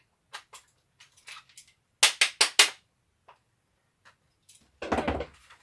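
Sharp clicks and knocks of a tool and hard plastic parts being handled while a cordless drill is taken apart. There is a quick run of four loud clicks about two seconds in and a heavier knock near the end.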